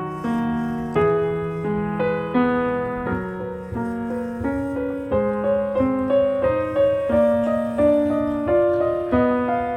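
Background piano music: a slow melody of single struck notes over held bass notes.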